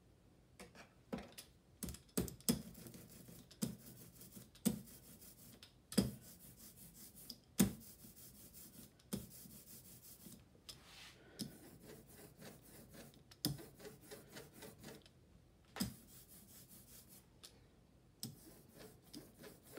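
Faint sticky rubbing of a rubber brayer being rolled through printing ink, with irregular knocks every second or two.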